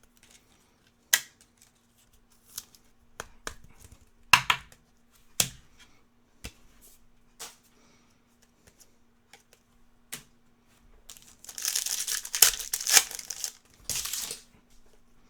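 Cards being handled with scattered light clicks and taps, then a trading-card pack's foil wrapper torn open and crinkled in two rough bursts near the end.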